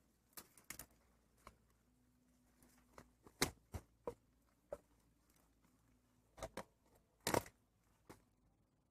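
Irregular sharp clicks and light knocks from fishing tackle being handled close by, the loudest about three and a half and seven seconds in.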